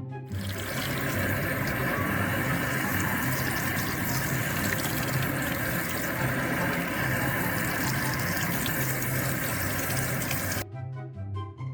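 A steady, loud rushing noise with background music beneath it; it starts abruptly just after the start and cuts off suddenly about a second before the end.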